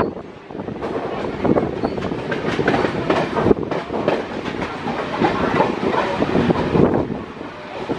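MEMU electric multiple-unit train running, heard through an open coach doorway: a steady rushing noise with the wheels clattering over rail joints in irregular sharp clacks.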